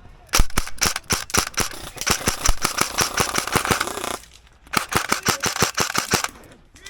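Airsoft guns firing rapid strings of shots: a run of about four seconds, a short break, then another run of about a second and a half.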